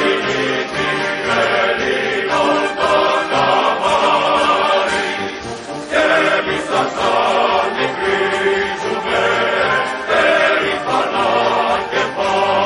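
Background music with a choir of voices singing sustained notes, easing off briefly about five seconds in and then rising again.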